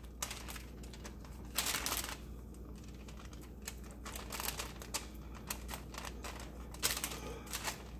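Wax paper crinkling in the hand while a plastic spatula scrapes and taps, spreading soft batter: irregular small clicks and rustles, with a louder rustle about two seconds in.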